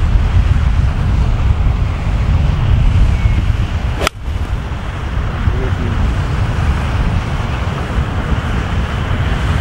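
Wind buffeting the microphone throughout, with one sharp click about four seconds in as a golf iron strikes the ball off the tee.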